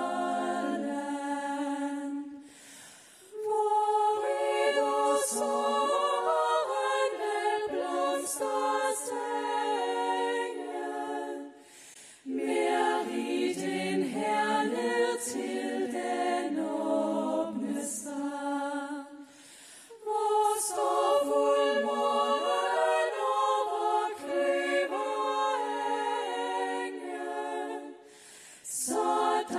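A group of women singing a cappella in harmony into microphones, with brief pauses between phrases.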